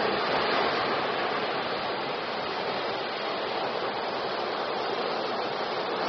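Ocean surf: waves breaking and washing in as a steady rushing hiss, loudest at the start and swelling again near the end.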